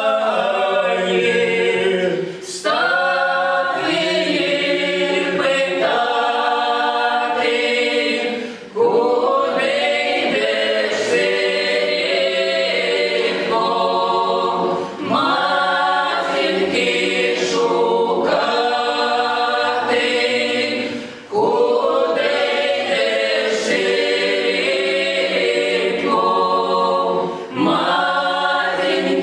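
Mixed men's and women's folk ensemble singing a Russian spiritual psalm a cappella in several parts. The song goes in long phrases, with a brief pause for breath about every six seconds.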